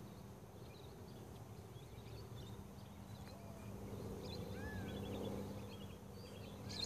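Quiet outdoor ambience: faint scattered bird chirps and one short whistled note over a steady low hum.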